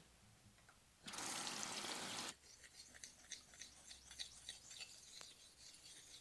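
Water running from a tap for about a second, then a run of small wet crackles and drips.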